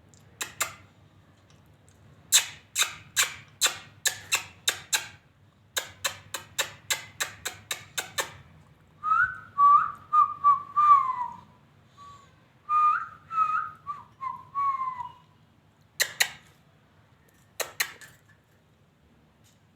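Pet lovebird calling: two quick runs of sharp, shrill chirps at about three a second, then two phrases of warbling, whistled notes that slide up and down, and two more shrill calls near the end.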